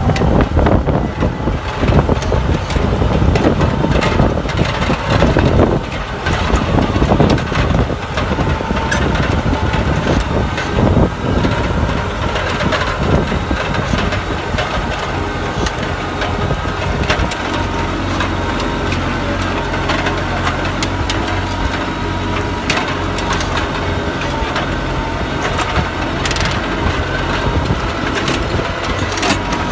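A tractor engine pulling under load while a four-bottom mouldboard plough cuts through a stubble field, dry soil and straw crunching and scraping against the plough bottoms. The engine's steady running note comes through more clearly in the second half.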